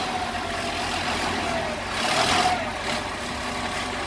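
LMTV military truck's diesel engine running just after starting, with a brief rise and fall in revs about two seconds in. It is the first start after the electrical rewiring, and it runs normally.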